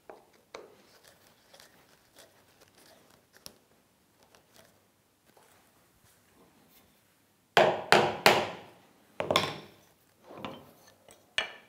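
Wooden pieces of a round-tenon joint rubbing and knocking against each other and the wooden bench. Faint rubbing and small clicks come first, then a quick run of loud wooden knocks about two-thirds of the way in, followed by a few single knocks.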